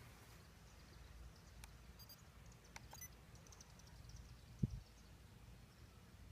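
Near silence: faint outdoor background with a few faint high ticks or chirps, and one soft low thump about four and a half seconds in.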